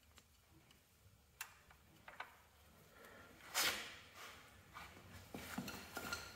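Hydraulic hoses and metal fittings handled at a garden tractor's control valve: a few faint light clicks, a brief louder scrape about three and a half seconds in, then more small clicks and handling noises near the end.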